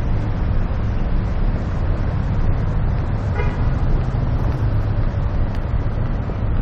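Street traffic noise, a steady low rumble of passing cars, with a brief car horn toot about three and a half seconds in.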